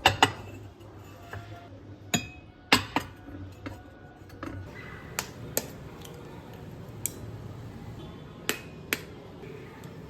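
Crockery being handled: scattered sharp clinks and taps of hard dishes, a few with a brief ringing tone.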